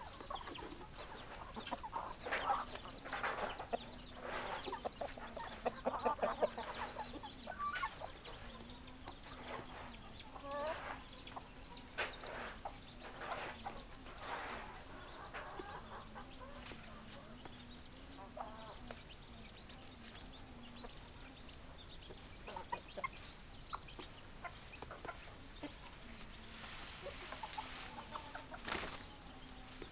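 Domestic hens clucking, many short calls one after another, busier in the first half and sparser later, over a faint low steady hum.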